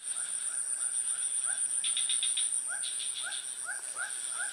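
Chorus of insects and frogs: a steady high insect buzz under short rising frog calls repeating about twice a second, with a brief rattling chatter about two seconds in.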